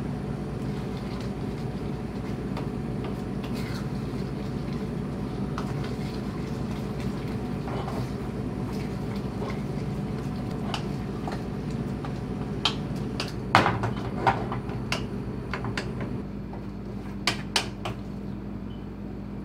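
A wooden spatula stirring a thick paste in a small metal saucepan on a gas stove, with scattered knocks and scrapes against the pan that cluster in the second half. A steady low hum runs underneath.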